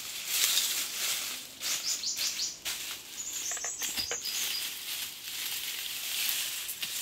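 Rustling and handling noises in a forest, with two quick runs of short, high bird chirps, about two and about three and a half seconds in.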